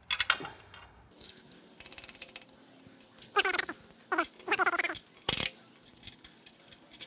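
A nut being spun by hand onto a bolt through an aluminium skid bracket, left finger tight: small metal clicks and rattles, a quick run of even ticks about two seconds in, and a sharp click past five seconds. A few short pitched sounds come in the middle.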